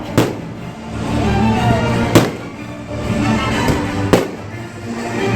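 Fireworks bursting: three sharp bangs about two seconds apart, over music.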